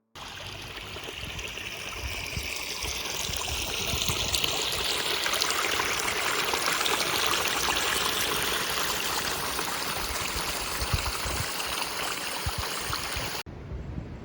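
Water running steadily in a small stream, a continuous rushing, trickling sound. Near the end it drops abruptly to a much quieter hiss.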